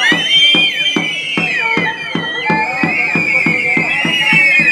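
Drums beating fast and steadily, about four or five strokes a second, with high wavering pitched tones over them.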